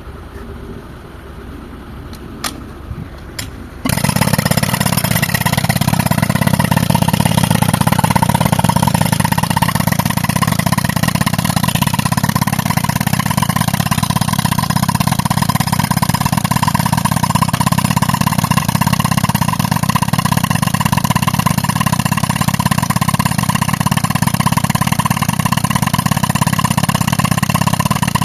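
Tractor air compressor and pneumatic rock-breaking hammer: a low engine hum with a few clicks, then about four seconds in a loud, dense, steady machine noise starts abruptly and keeps going.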